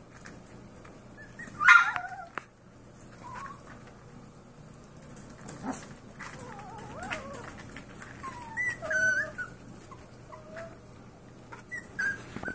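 Seven-week-old Yorkshire terrier puppies whining and yipping: one sharp yip dropping in pitch about two seconds in, then a series of thin, wavering whines.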